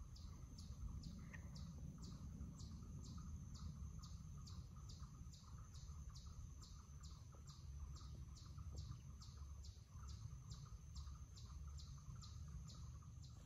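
An insect chirping steadily and faintly at an even rate of about three high chirps a second, over a low rumble.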